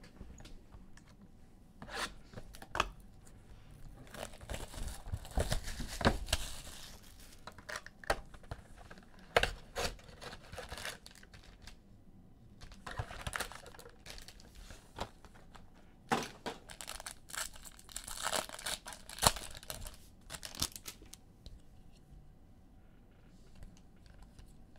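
Panini Chronicles basketball card packs being torn open, their wrappers ripping and crinkling in several bursts, with sharp clicks from handling between them.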